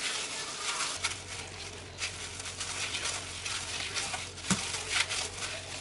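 Gloved hands kneading and rolling a ball of dough on a silicone pastry mat: soft, irregular pats, presses and rustles of the thin plastic gloves, with a couple of sharper ticks near the end.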